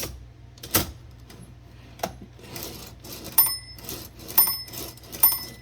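Smith Premier No. 10 typewriter: a few sharp mechanical clicks, then the margin bell dings three times in the second half as the carriage reaches the margin. Past the bell the keys no longer print.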